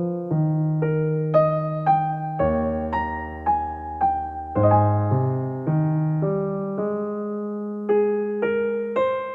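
Background music: a gentle electric piano melody of single struck notes, each fading after it is played, over held low bass notes.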